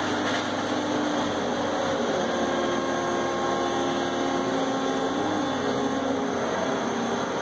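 Brokk remote-controlled demolition robot's electric-driven hydraulic system running steadily. Its whine shifts a little up and down in pitch as the arm and bucket move.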